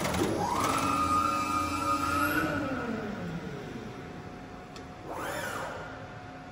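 Press brake's drive whining as the upper beam rises: the pitch sweeps up, holds steady for about two seconds, then falls away, with a second short rise and fall about five seconds in.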